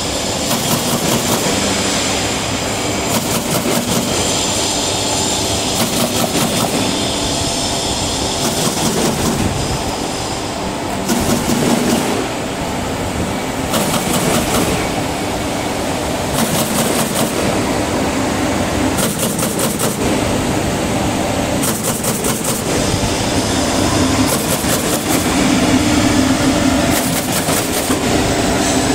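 Full-automatic corrugated cardboard partition assembly machine running: a steady mechanical noise with a sharp clack every second or two.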